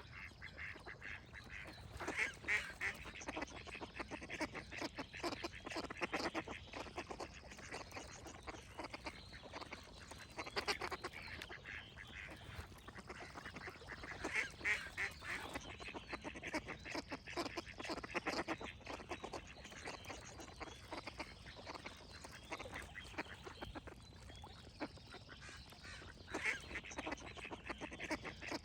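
Ducks quacking in repeated bursts of harsh calls every few seconds, with faint birdsong in the background.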